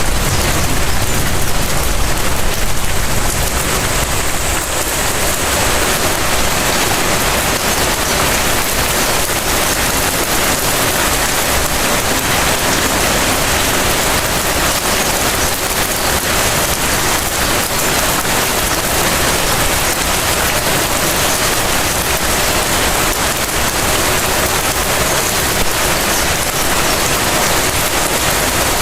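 Light rain falling steadily, an even hiss of drops on surfaces. A low rumble sits under it in the first few seconds and then fades.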